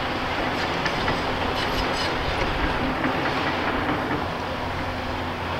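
Tracked excavator at work on a demolition: its diesel engine runs steadily under a dense mechanical clatter, with scattered metallic clanks from its demolition attachment working on the building.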